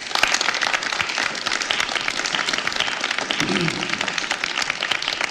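A group of people applauding, the clapping starting suddenly and running on steadily, with a short voice sounding over it about midway.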